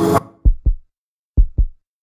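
Electronic logo sting: a rising synth swell cuts off abruptly, then two pairs of deep bass thumps beat in a heartbeat-like double rhythm.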